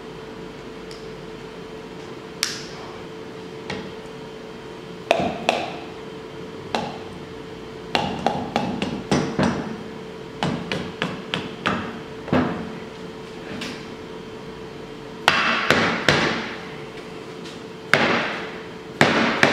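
Green plastic mallet tapping the top of a Polaris 700 twin's cylinder block, driving the jug down over the pistons onto the crankcase. Irregular taps, some in quick runs, with the heaviest blows in the last few seconds.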